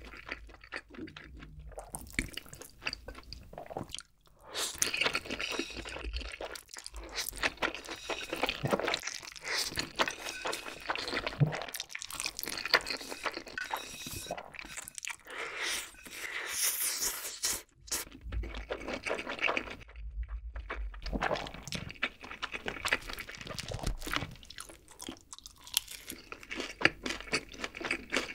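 Close-miked eating: jjapaghetti black bean sauce noodles being slurped up and chewed, a dense run of wet clicks and sucking noises with brief pauses between mouthfuls.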